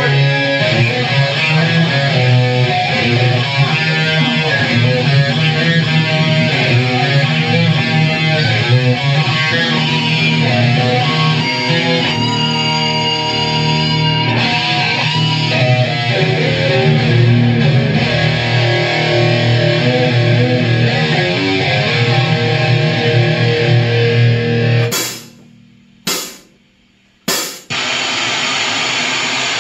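A band playing loud heavy rock on electric guitars through amp stacks, with a drum kit. About 25 seconds in the music breaks off, leaving two short bursts and then a steady noise.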